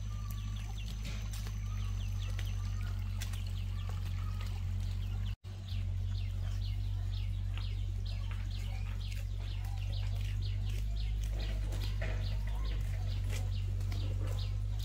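Many quick bird chirps, over and over, above a steady low rumble that is the loudest thing throughout; the sound breaks off for an instant about five seconds in.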